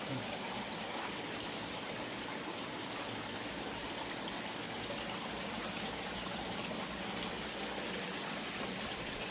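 Steady, even hiss like running water or moving air, unchanging throughout.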